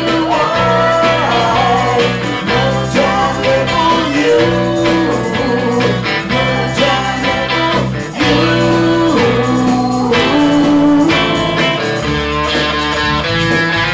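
A man and a woman singing a song together over an electric guitar, with a steady low bass part underneath.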